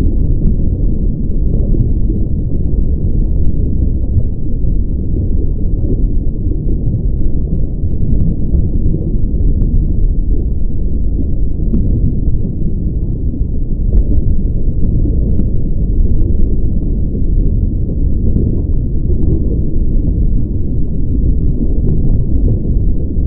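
Steady low underwater rumble heard through a GoPro towed behind a moving sportfishing boat: water rushing over the housing and the boat's propeller wash. A few faint ticks sound now and then.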